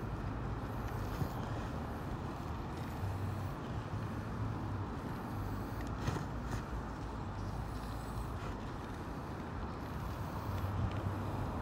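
Steady rumble of wind and tyre noise from a Groove e-Ride e-bike rolling along a paved path at about 10-15 mph, with a few light knocks from bumps.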